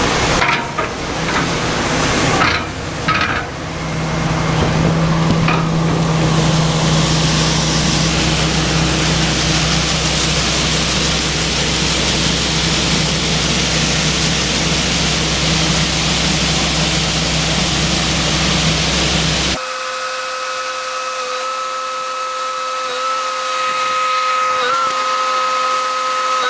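Farm tractor and grain-handling machinery running during soybean harvest: a loud, steady rushing hiss over a low hum. About two-thirds of the way through it cuts to a quieter, steadier engine hum with a high whine.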